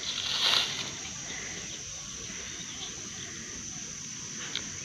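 Insects chirring steadily in a high pitch, with a brief rustling scrape about half a second in and a small click near the end.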